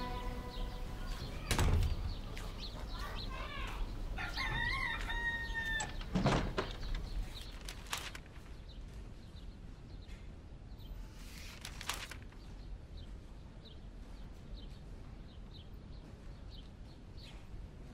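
A rooster crows, one held call about five seconds in, after a few shorter chicken calls. Two dull thumps, about two and six seconds in, are the loudest sounds, and a couple of fainter knocks follow.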